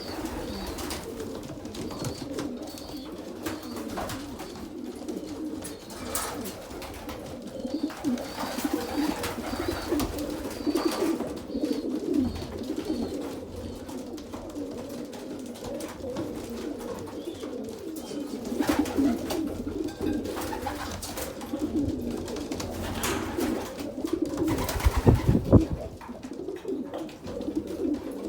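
Domestic pigeons cooing continuously in a loft, many calls overlapping, with faint high peeps now and then and a few brief knocks, the loudest about 25 seconds in.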